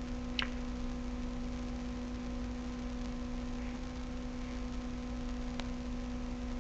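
Steady low electrical hum in the recording, with a brief soft noise just after the start and one faint click near the end.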